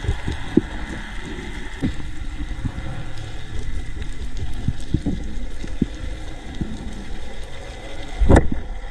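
Underwater camera audio: a steady low rumble of water moving over the housing, with scattered small knocks and faint ticks. A loud thump comes near the end.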